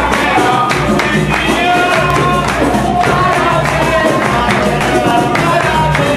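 Live capoeira roda music: voices singing over a steady rhythm of percussion, with the jingles of a pandeiro and the low alternating notes of the berimbau.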